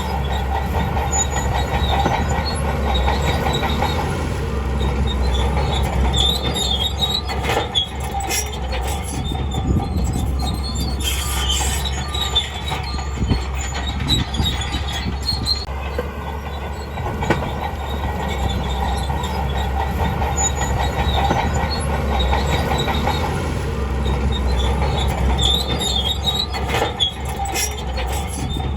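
Crawler bulldozer working: a steady diesel engine drone, with metal-on-metal squealing and clanking from its steel tracks now and then.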